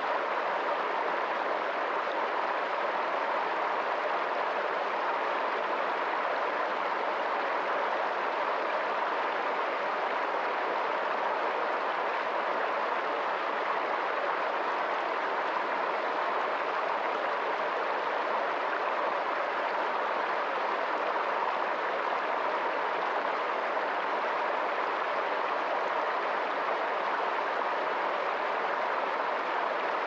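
Stream cascading in white water over boulders: a steady, unbroken rushing and splashing.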